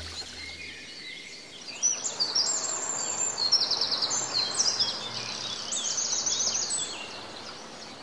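Songbirds singing outdoors: a run of high chirps and fast trills from about two seconds in until near the end, over a steady background hiss.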